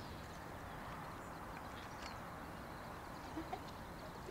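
Faint, steady outdoor background rush, with a few soft ticks.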